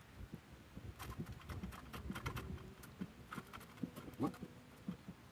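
Irregular small knocks and taps as a cylindrical bamboo bubu fish trap is shaken and knocked against the rim of a plastic bucket to tip its catch out.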